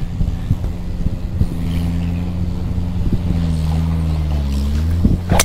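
Engine of a grounds tractor or mower running steadily, its pitch dipping and rising again about three and a half seconds in. Near the end, one sharp crack of a golf club striking the ball off the tee.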